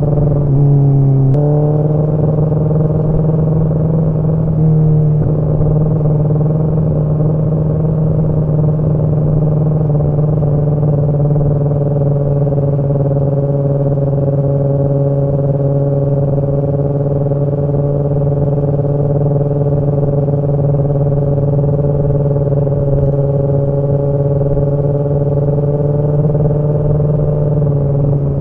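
Kawasaki ZX-10R's inline-four engine running at steady cruising revs while riding, with a brief drop and recovery in engine pitch about a second in.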